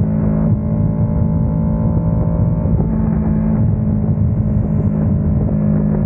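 Kawasaki Ninja 650 parallel-twin engine running through an Ixil RC aftermarket exhaust, with a steady note that wavers in pitch from about half a second in and settles steady again after about three and a half seconds.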